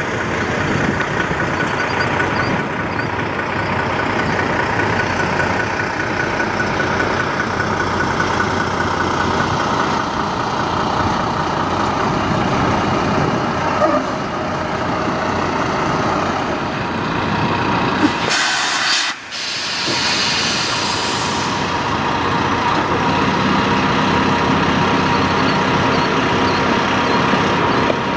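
Peterbilt semi truck's diesel engine running steadily as the truck drives in, with a loud air-brake hiss about 18 seconds in that lasts a few seconds.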